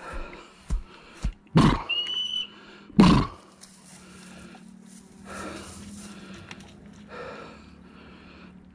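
A hunting-dog whistle blown once, a short steady high note about two seconds in, signalling the dog on. Around it, a few thumps and two loud rustling bursts of scrub and footsteps on a steep slope, with softer rustling after.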